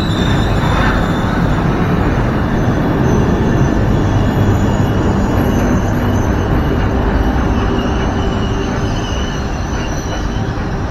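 Trenitalia Frecciabianca passenger train's coaches rolling past along the platform as the train slows to a stop: a steady, loud rumble of wheels on rail with faint thin squeals above it.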